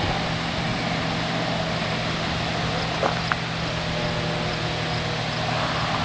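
Steady low electrical hum of a microwave oven running while it heats a cup of water. Two short clicks come about three seconds in.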